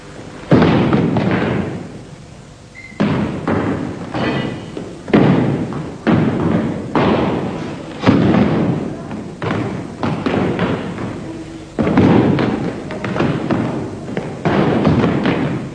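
Heavy foot stamps and strikes of Bajiquan techniques on a gymnasium floor, about a dozen sudden thuds at uneven intervals, each followed by a short echo of the hall.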